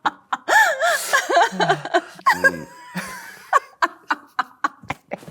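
Two people laughing together in short bursts of giggling, with a lower chuckle partway through.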